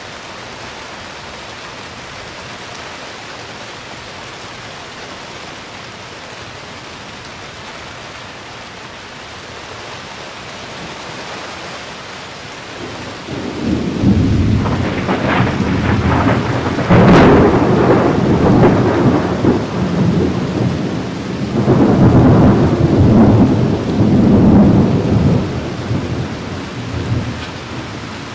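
Steady rain hissing down, then rolling thunder breaking in about halfway through: a sharp crack near the middle and low rumbling that swells and fades over some fifteen seconds.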